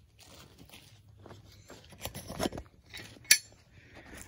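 Footsteps on bark mulch and handling rustles as someone walks toward the porch steps, with one sharp click about three seconds in.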